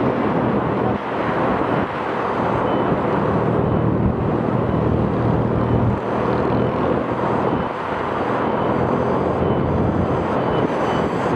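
Motorcycle running steadily on the move, with a constant rush of air and road noise.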